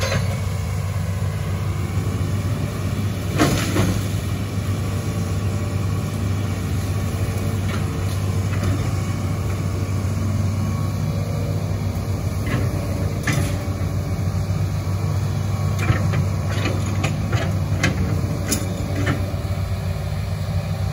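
Diesel engine of a Hitachi ZX210F amphibious excavator running steadily under work, with scattered short clanks and knocks as the bucket digs into the muddy bank.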